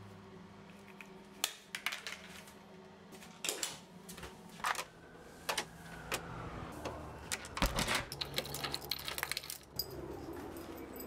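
Irregular clicks, knocks and rattles of someone handling things and moving about, going through a door; the knocks are busiest in the last few seconds.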